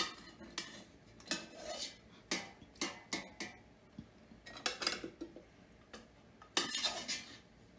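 Metal utensils clinking and scraping against a stainless steel pot and a plate, in irregular clusters, as beef on the bone is lifted out of broth and laid on the plate.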